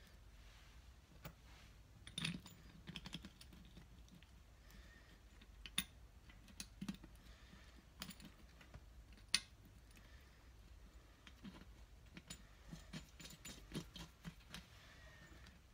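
Light metallic clicks and taps as a sump plate, gauze filter and gaskets are handled and pressed into place against the aluminium crankcase of a BSA Fury engine. The clicks are scattered and irregular, with a few sharper ones and a quick run of them near the end.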